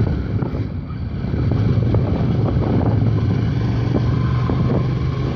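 Hyosung GT650R's V-twin engine running at steady revs under way, picked up through a helmet headset along with wind and road noise. It gets slightly louder about a second and a half in.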